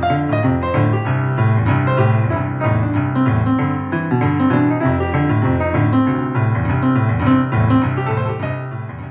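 Piano music with a steady run of notes, fading out near the end.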